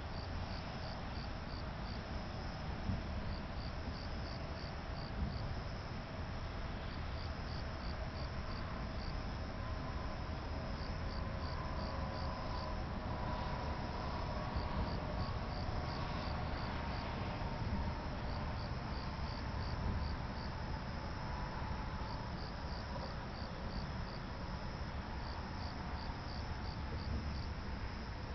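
Crickets chirping in short trills of about five or six pulses, one trill roughly every three seconds, over a steady low hiss.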